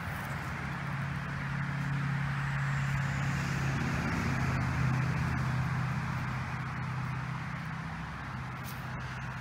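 A steady engine hum that grows louder toward the middle and eases off near the end, over a rushing noise.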